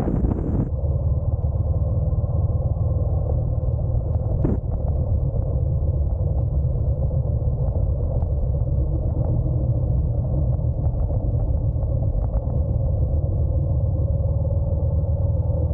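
Steady, muffled low rumble of a Honda NC750X's parallel-twin engine and road noise while riding. The hiss of wind on the microphone cuts off abruptly under a second in, leaving only the low rumble.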